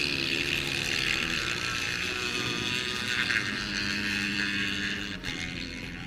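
Several dirt bike engines at high revs as the bikes race around an ice track, their pitch rising and falling as the riders work the throttle and shift.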